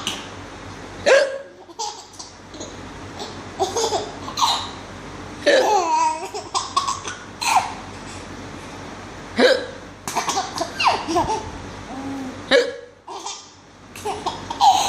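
A woman hiccuping sharply every few seconds, with a young child laughing at the hiccups in between.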